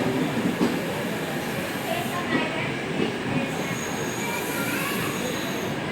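Passenger train running on the rails: a steady rumble with a few knocks, and the wheels squealing in thin, high-pitched tones through the second half.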